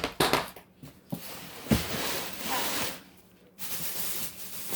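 Food packaging being handled: plastic rustling and crinkling with a few knocks, starting with a sharp click and pausing briefly about three seconds in.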